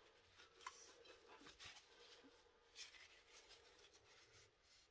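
Near silence, with faint scattered rubbing and light ticks as a damp paper towel wipes the outside of a snow-globe tumbler.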